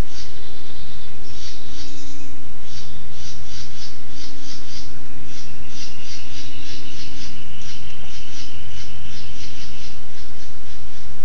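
Rhythmic high animal chirping, about four chirps a second, over a steady low hum. A steady higher drone joins about five seconds in and stops near ten seconds.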